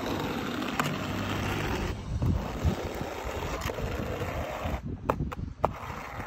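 Notched trowel scraping thin-bed mortar along the top of aerated-concrete blocks, spreading it into ridges, with a few sharp clicks near the end.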